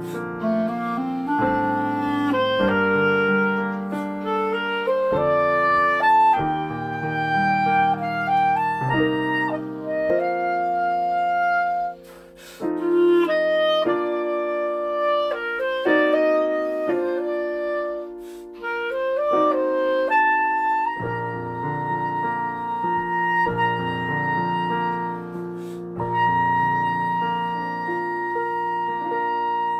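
Clarinet playing a slow lyrical melody over piano accompaniment. From about twenty seconds in, the clarinet holds one long high note over sustained piano chords to close the piece.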